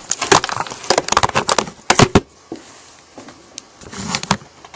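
Rapid clatter of hard objects being handled and set down on a work surface: a quick run of clicks and knocks in the first two seconds, then a few more about four seconds in.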